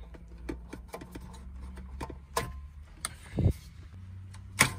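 Hard plastic clicks, taps and knocks of a car stereo and its wiring plugs being handled and unplugged behind the dashboard, with a dull thump a few seconds in and a sharp click near the end.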